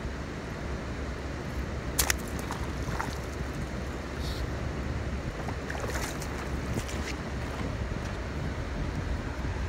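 Wind buffeting the microphone: a steady low rumble. A sharp click about two seconds in, and a few fainter clicks later.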